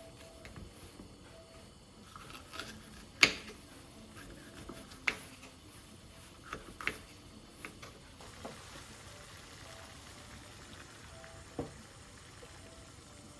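Scattered light clicks and knocks of objects being handled, irregularly spaced, the sharpest about three seconds in.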